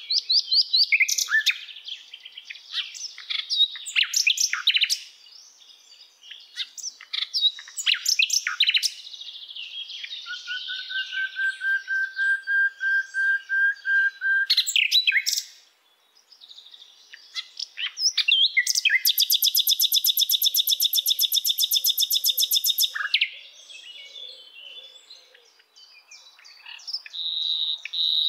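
A songbird singing: varied quick chirps and warbles, a long steady whistle near the middle that rises slightly, then a fast, even trill lasting about four seconds.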